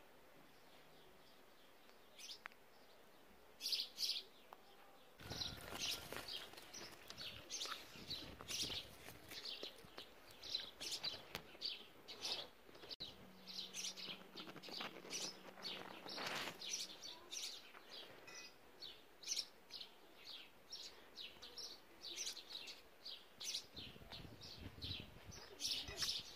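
Small birds chirping busily: many short, high chirps in quick succession, starting a few seconds in.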